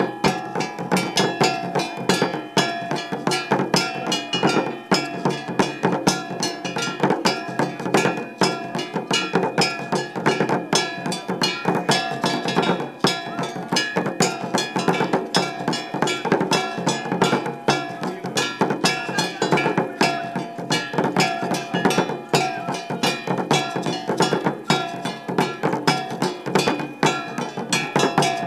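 Fast, dense drumming with a steady pitched ringing running through it: the percussion that accompanies a Dogon mask dance.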